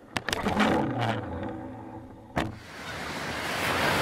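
Spinning reel being cranked: a low, even whir for about a second and a half, opening with a few light clicks. A sharp knock follows, and then surf and wind noise that grows louder.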